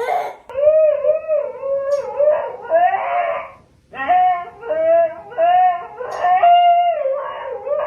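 A dog howling in a run of short, wavering notes, with a brief pause a little before the middle.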